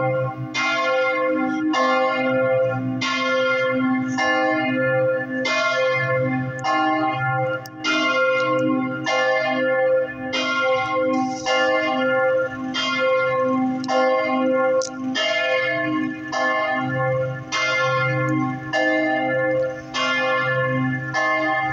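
Church bells swung full circle 'a distesa' in the Italian manner: several bells, including three cast in 1938 in Do3, striking in a steady, overlapping stream of about one to two strokes a second, each stroke ringing on into the next.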